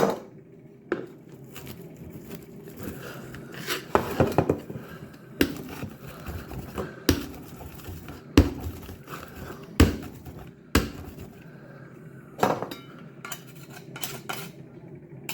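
Kitchen utensils knocking and clinking against dishes, a sharp knock every second or so, over a steady low hum.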